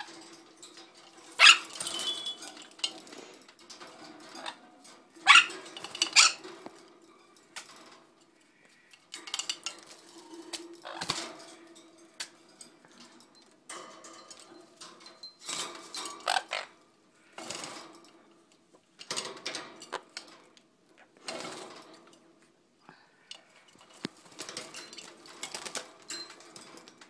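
Small parrots, a sun conure among them, bathing in a shallow plastic bird bath: repeated bursts of splashing and wing-flapping in the water, each about half a second to a second long, coming every second or two.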